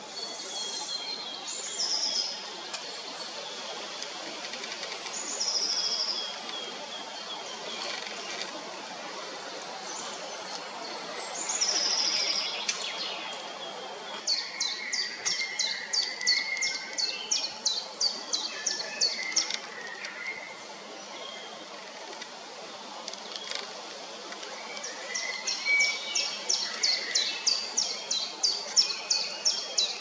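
Woodland songbirds singing: several short high phrases, then two runs of rapid, evenly repeated high notes, about four a second, each lasting about five seconds, with lower chirps mixed in.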